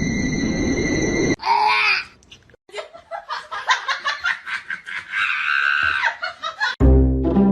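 Hearty human laughter in choppy repeated bursts, after a short noisy stretch with a steady high tone and a brief cry; music comes in near the end.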